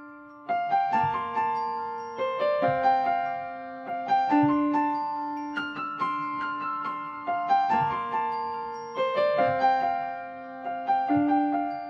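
Solo piano playing a gentle arranged melody: short runs of struck notes every second or so, ringing out over held lower notes.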